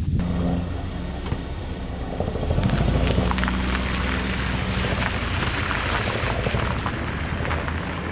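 A vehicle driving over a rough road: a steady low engine hum with road noise and frequent small rattles and knocks.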